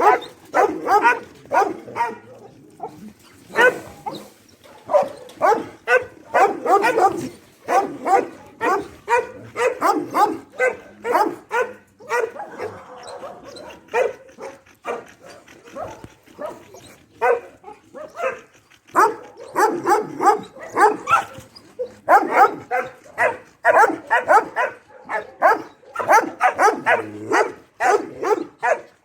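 Dog barking in rapid runs of several barks a second, with brief pauses between runs.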